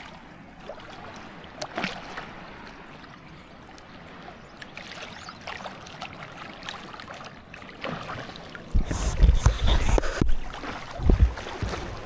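Sea water sloshing and splashing around swimmers in shallow water, with a few short splashes. Near the end, heavy low rumbling buffets hit the microphone, twice.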